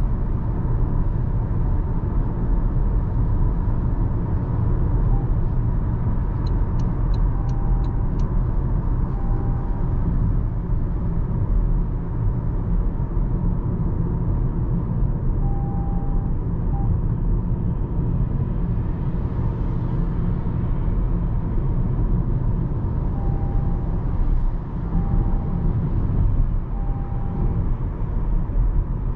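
Steady low road rumble of a Toyota Camry XV80 hybrid driving. Short faint tones come and go a few times, and a quick run of about five clicks sounds about a quarter of the way in.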